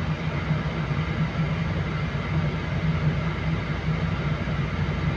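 Heavy diesel engine running with a steady low hum, heard from inside a vehicle cab.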